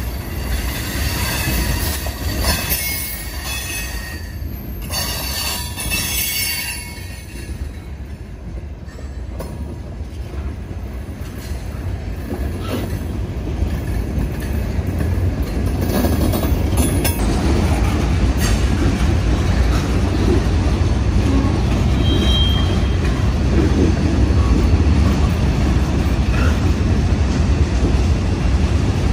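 Florida East Coast Railway freight train of open hopper cars rolling past at close range, a steady rumble of wheels on rail. Thin wheel squeal rings in the first several seconds, and the rumble grows louder in the second half.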